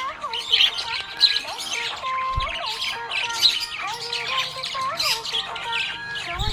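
Budgerigar chirping and chattering, with fast, busy high calls, over background music that carries a held, gliding melody.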